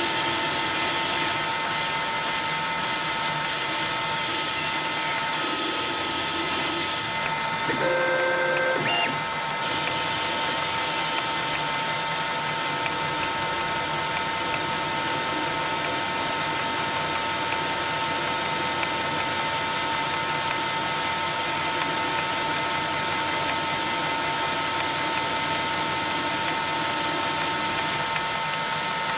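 CNC-converted Myford ML7 lathe running steadily while turning a small ball handle: a constant machine whine with steady tones over the running noise, and a brief change of tone about eight seconds in.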